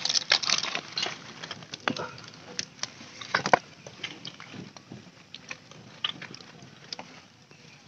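Open fire crackling with irregular pops and snaps, a whole chicken roasting directly in the flames; the loudest cluster of pops comes about halfway through.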